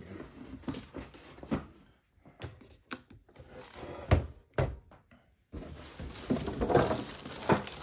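Handling noise: a few knocks and thumps, then, from about two-thirds of the way in, steady rustling and crinkling of a plastic bag and a cardboard packing box being rummaged through.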